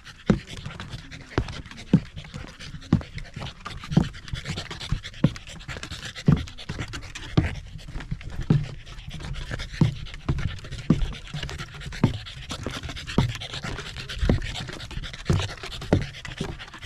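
Footsteps of hiking boots on a wooden boardwalk's planks and steps, about one a second, with a corgi panting alongside.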